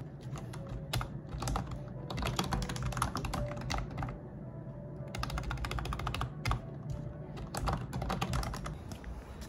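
Typing on a computer keyboard: rapid key clicks in several quick spurts with short pauses between them.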